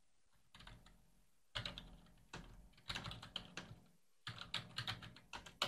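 Typing on a computer keyboard: runs of quick keystrokes in short bursts with brief pauses between them.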